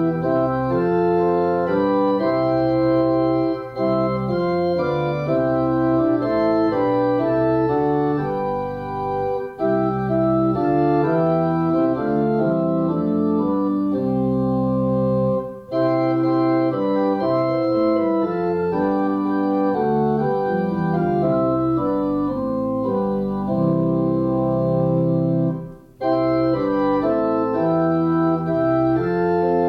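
Organ music: sustained chords moving from phrase to phrase, with a few brief breaks between phrases.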